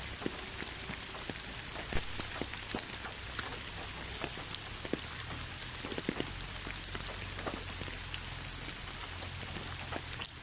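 Steady rain: an even hiss with many separate drop impacts scattered through it, and a brief dip near the end.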